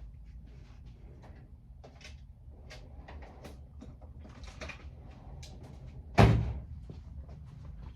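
Small clicks and taps of hand tools and wiring being handled, with one loud clunk about six seconds in, over a low steady hum.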